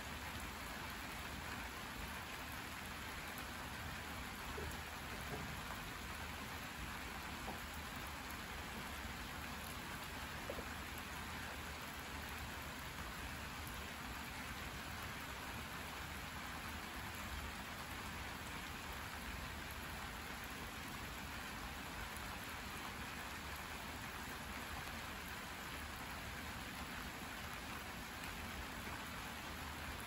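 Steady rain falling on a garden's plants and wet, puddled ground: an even patter that does not let up.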